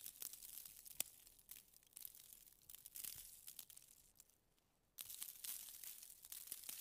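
Faint gritty rustling with scattered small clicks as fine gravel is scooped with a small steel bowl and poured into a model tractor trolley, with a quiet pause a little past the middle.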